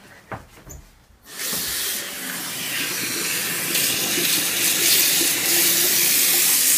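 A bathroom sink tap is turned on about a second in, and water runs steadily from the tap onto a person's head and splashes into the basin.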